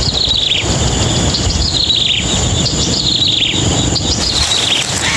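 Bird chirping: a short falling run of high chirps, repeated about every second and a half, over a low rumble and a steady high-pitched whine.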